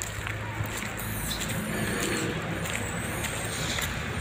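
A steady low engine hum, like a motor vehicle running, with brief high chirps over it between about one and two and a half seconds in.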